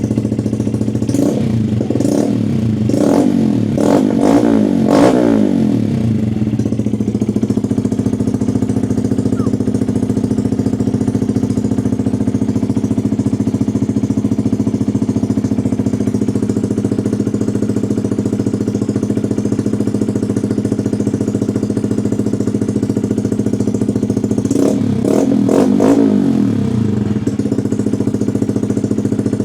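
Honda Monkey 125's single-cylinder engine running through a Scorpion titanium exhaust with the baffle out, idling loudly. It is blipped several times in quick succession in the first few seconds and revved again a few times near the end.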